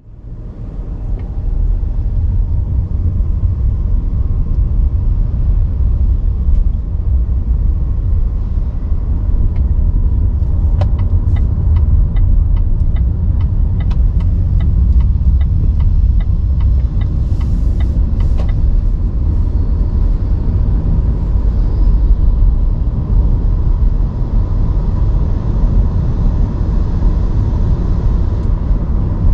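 Car driving, with a steady low road and engine rumble. Partway through comes a run of evenly spaced short ticks lasting about ten seconds.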